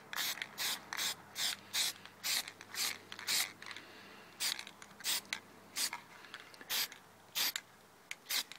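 Aerosol spray-paint can sprayed in short hissing bursts, about two a second, with a brief pause a little before the middle.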